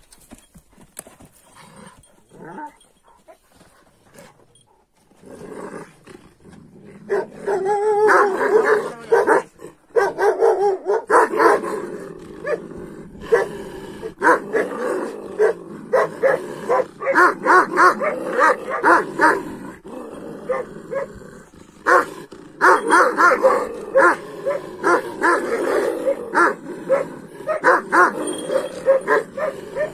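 Kangal shepherd dogs barking at each other, quiet for the first few seconds, then heavy, rapid, repeated barking from about seven seconds in.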